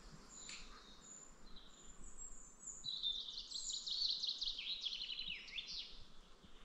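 A small songbird singing: thin high whistled notes, then a fast run of high notes with quick downward sweeps starting about three seconds in and lasting some three seconds.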